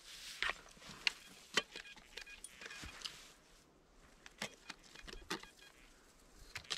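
Shovel digging into forest soil and dry leaf litter: scattered crunches, scrapes and knocks. A metal detector gives faint short beeps about two to three seconds in.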